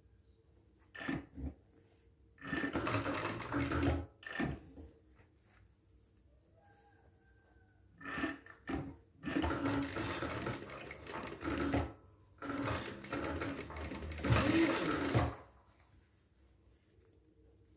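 Sewing machine stitching in stop-start runs: a few short bursts in the first five seconds, then longer runs of two to three seconds each from about eight seconds in to about fifteen, with short pauses between.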